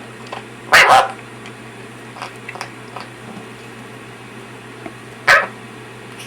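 Patagonian conure (burrowing parrot) imitating a cough: two loud, short, cough-like bursts, one about a second in and another near the end, with a few faint sounds between.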